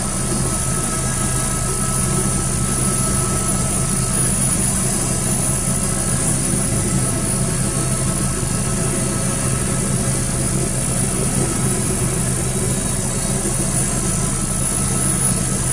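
Westland Wasp helicopter's Rolls-Royce Nimbus turboshaft and rotor running steadily, heard inside the cockpit: an even drone with a constant high turbine whine.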